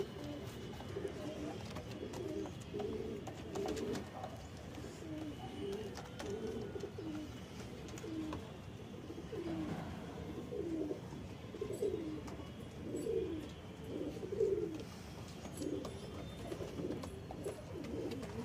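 Domestic pigeons cooing over and over, a low coo in short phrases that rise and fall, one after another.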